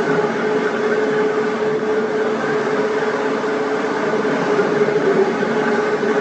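Edco 2EC15B dual-head electric floor grinder running steadily, its grinding stones working across a concrete slab, with a constant mid-pitched hum over a rough grinding noise.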